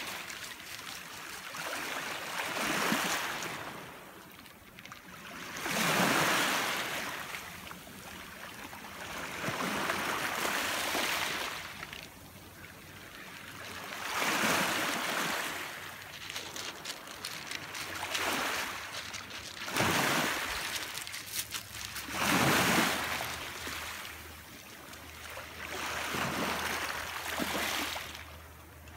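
Small waves lapping and washing up a pebble shore, the rush of water swelling and fading every three to four seconds.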